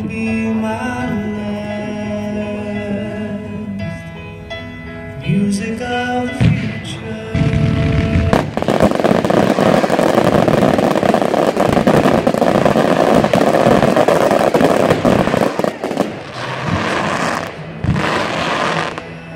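Music with sustained tones plays for the first several seconds. From about eight seconds in it is swamped by a loud, dense barrage of aerial firework bursts: many overlapping bangs and crackle. A few separate booms stand out near the end.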